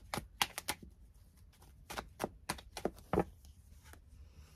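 Tarot cards being handled, drawn from the deck and laid down: a faint, irregular string of sharp clicks and snaps, with the loudest just after three seconds.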